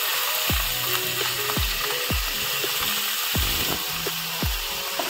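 Raw chicken pieces sizzling in hot oil in a pan as more pieces are laid in, a steady hiss, with a row of low, falling thumps underneath about every half second.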